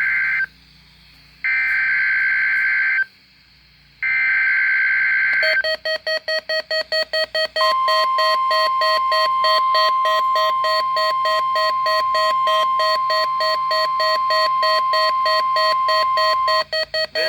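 Emergency alert broadcast tones over NOAA Weather Radio: three bursts of SAME header data, each about a second long with a second's gap between them. Then a rapid pulsing electronic alarm beep, joined about two seconds later by a steady warning alarm tone that holds for about nine seconds and cuts off near the end.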